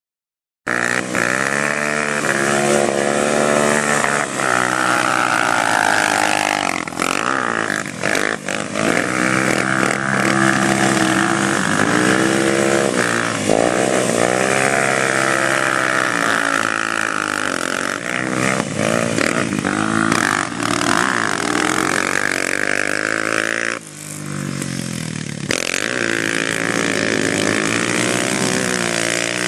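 ATV engine revving up and down repeatedly, its pitch rising and falling every few seconds as the quad is driven hard and slid around. The sound starts suddenly about half a second in, and the engine briefly eases off about three quarters of the way through.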